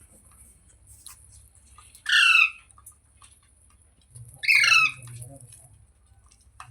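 A pet green parrot squawking twice, two loud harsh calls each about half a second long, the second about two and a half seconds after the first.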